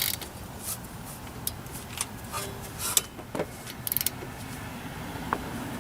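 Scattered sharp metallic clicks and clinks of hand tools working on a brake caliper, with a quick run of several clicks about four seconds in.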